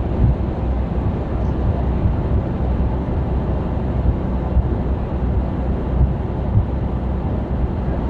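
Steady cab noise inside a Mercedes-Benz truck cruising on a motorway: a low, even engine drone mixed with road and wind noise.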